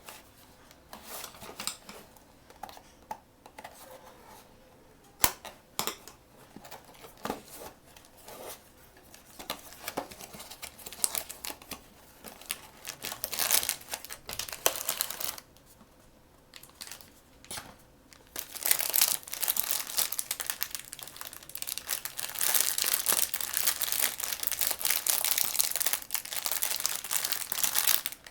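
Blind-box packaging being handled and torn open by hand: scattered clicks and short rustles at first, then continuous crinkling of the wrapping from about two-thirds of the way through.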